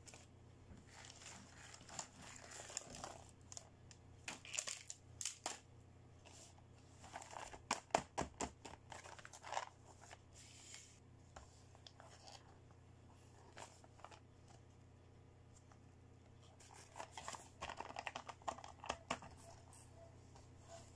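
Clear plastic toy packaging crinkling and rustling as hands handle and pick up bagged dressing-up sets, in three bouts with a quieter stretch in the middle. A cluster of sharp clicks comes about eight seconds in.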